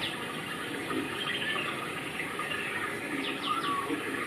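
Small birds chirping over a steady rushing background. A quick run of short, falling chirps comes at the very start and again about three seconds in.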